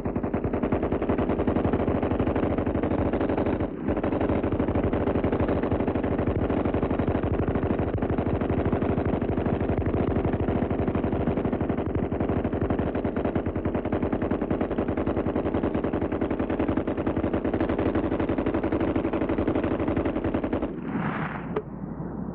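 Browning M1917 water-cooled machine gun firing one long sustained burst of rapid automatic fire, with a brief break about four seconds in. The firing stops shortly before the end, leaving a few separate knocks.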